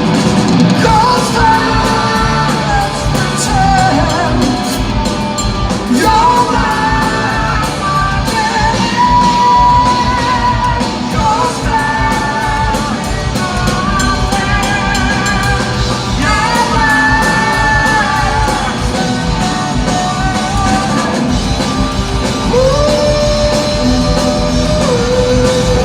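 Live rock power trio playing loud: drums, bass and electric guitar, with long held, bending melody notes on top.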